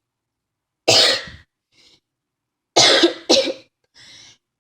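A person in a coughing fit: one hard cough about a second in, then two more in quick succession near three seconds.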